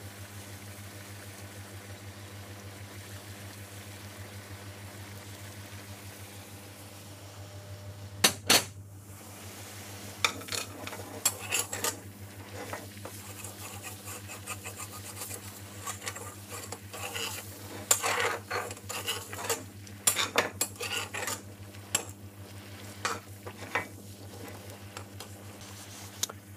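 A metal spoon stirring a thickening curry sauce in a metal frying pan, clinking and scraping against the pan in irregular bursts from about eight seconds in, over a steady low hum.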